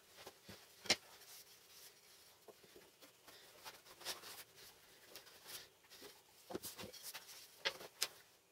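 Light knocks, taps and rustles of small board pieces being handled and set down on a wooden workbench, with a few sharper taps about a second in and near the end.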